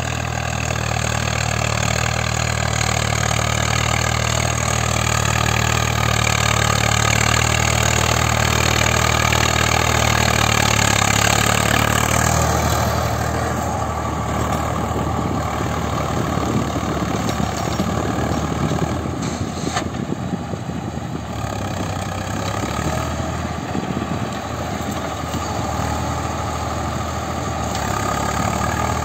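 Swaraj 855 tractor's three-cylinder diesel engine running steadily under load while driving a Maschio rotavator through the soil. About twelve seconds in, the sound turns duller and a little quieter as the tractor passes and works away.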